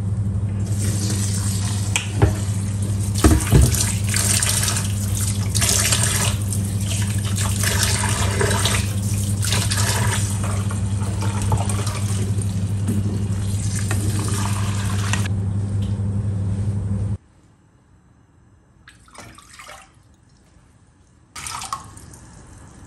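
Kitchen tap running into a stainless steel sink as soaked quinoa is rinsed, the water pouring through a steel mesh strainer into a bowl, with a steady low hum under the flow and a few clicks of the strainer. The water cuts off suddenly about seventeen seconds in.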